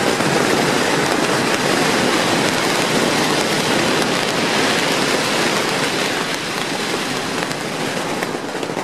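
A long string of firecrackers going off in one dense, continuous crackle, easing off slightly near the end.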